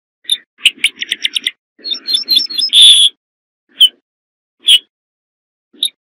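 Ortolan bunting singing. A run of quick repeated notes is followed by a second run of higher notes that ends in a longer, louder note about three seconds in. After that come single notes about a second apart.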